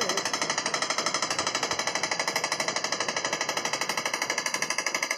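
Electric air compressor running, its pump making a rapid, even pulse with no let-up while it pumps up the tank.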